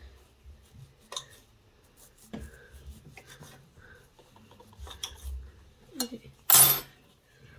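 Kinetic sand and clay being worked by hand with a knife: scattered small scrapes, taps and rubbing on the work surface, with one louder, short rush of noise about six and a half seconds in.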